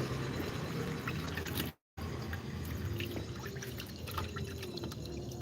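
Water dripping and trickling, with scattered small clicks over a steady low rumble. The sound drops out completely for a moment about two seconds in.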